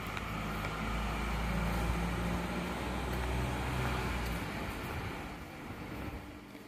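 A motor vehicle running nearby, a low engine rumble that builds over the first couple of seconds and fades away from about four and a half seconds in.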